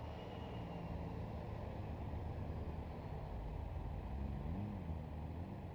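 Honda Gold Wing motorcycles riding slowly past at low engine speed, a steady low engine hum. About four seconds in, one engine's pitch briefly rises and falls as a bike passes close.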